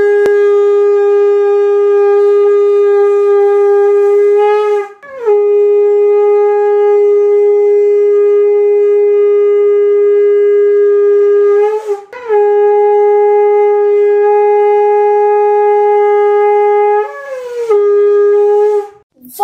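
A conch shell (shankh) blown in long, steady, single-pitched blasts, broken by two short breaths about five and twelve seconds in. The pitch lifts briefly as each new blast starts and wavers near the end.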